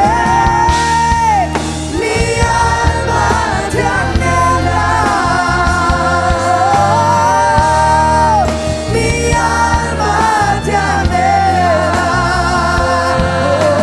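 Live worship music: singers with a band, long held sung notes gliding between pitches over a steady bass.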